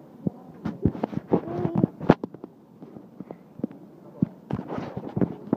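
Handling noise from a hand-held phone rubbing and knocking against clothing: irregular clicks and thumps, with no steady sound underneath.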